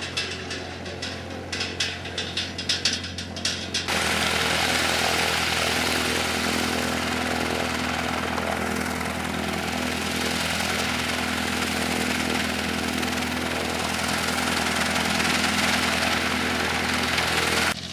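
A single-engine high-wing light plane's piston engine and propeller running at idle as it taxis, with an even pulsing beat. About four seconds in it becomes a loud steady rush of air and engine noise from right beside the spinning propeller, which cuts off suddenly near the end.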